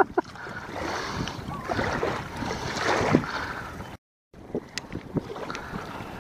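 Steady wind noise on the microphone mixed with choppy lake water lapping at the bank. About four seconds in the sound cuts out briefly, then comes back with a few light ticks.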